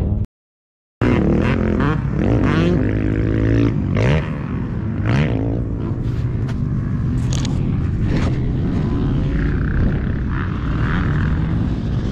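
Dirt bike engines running on the motocross track, revving so that the pitch rises and falls in the first few seconds, over a steady low engine rumble.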